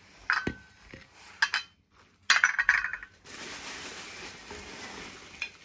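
Wood's Ware Beryl earthenware plates clinking against each other as they are set down and stacked: several sharp clinks, each with a brief ring, the loudest cluster a little after two seconds in. After that comes a steady rustle of packing material.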